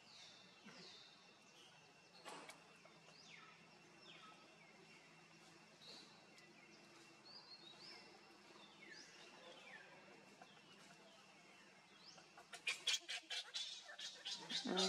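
Wild birds calling in the background, a string of short calls that each fall in pitch, over a faint steady high tone. Near the end a loud burst of rapid, sharp calls breaks in, several a second.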